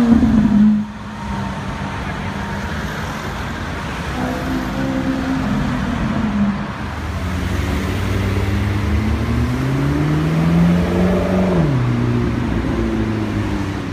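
Supercar engines in city traffic. A loud Lamborghini Aventador SV V12 cuts off abruptly about a second in, followed by a steady engine note. One engine then climbs in pitch for several seconds as it accelerates, drops sharply as it shifts, and settles back.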